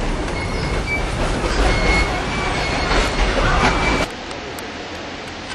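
Kuranda Scenic Railway train running on its rails, a low rumble with several brief high-pitched wheel squeals. About four seconds in the rumble cuts off suddenly, leaving a quieter background.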